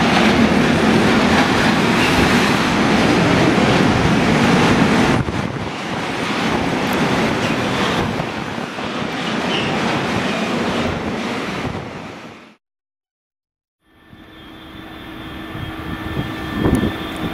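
A train of tank wagons rolling past on the rails; the sound eases about five seconds in and fades out about twelve seconds in. After a short silence, a DB class 628 diesel railcar idles with a steady hum.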